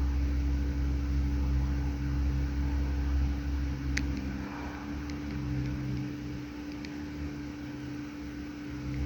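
Steady mechanical hum with a low rumble and a constant tone, from a running motor or engine, with one sharp click about four seconds in.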